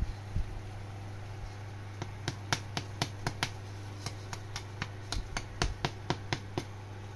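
A wooden stick tapping the crackling skin of a roast pork head, a rapid irregular series of sharp, hard clicks starting about two seconds in that shows the skin has roasted crispy. A steady low hum continues underneath.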